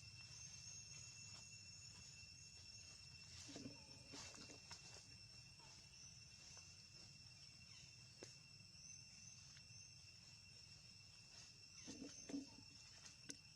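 Near silence: a faint, steady high-pitched whine, with a few soft rustles and clicks about four seconds in and again near the end.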